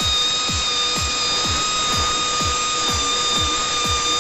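Rotary buffing tool with a ball-shaped abrasive stone running with a steady high whine as it grinds the tubeless tyre's inner liner around the puncture, preparing the surface for a mushroom patch. Background electronic music with a steady beat about twice a second plays over it.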